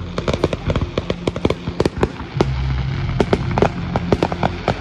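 Fireworks display going off: a rapid, dense run of sharp cracks and pops from bursting shells, several a second, over a low rumble.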